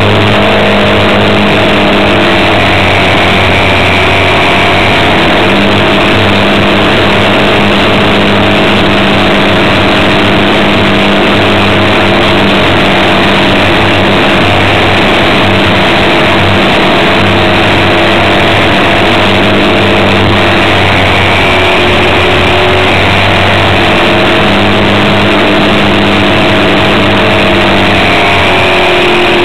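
Electric motor and propeller of a radio-controlled Cessna 172 model in flight, heard from a camera under the wing: a loud, steady drone mixed with wind rush, its pitch shifting slightly a couple of times.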